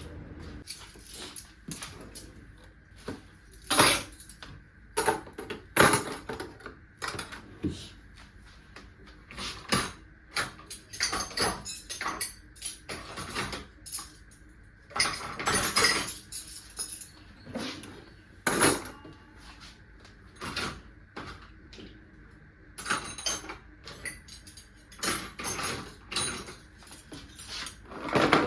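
Irregular clatter of dishes and utensils being handled: many short, sharp clinks and knocks at uneven intervals.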